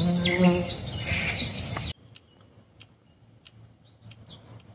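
Wild birds singing: a run of quick, repeated high chirped notes over steady background noise. It cuts off suddenly about two seconds in, leaving only a few faint, scattered chirps.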